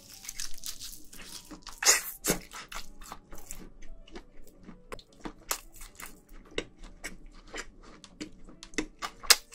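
Close-miked biting and chewing of a BBQ-glazed chicken leg: a loud crunching bite about two seconds in, then a steady run of wet chewing clicks and smacks.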